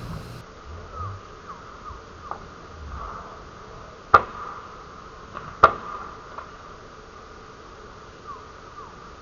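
Two sharp cracks about a second and a half apart from a spring-powered airsoft pistol being fired, over a steady background of insects buzzing with a few faint short chirps.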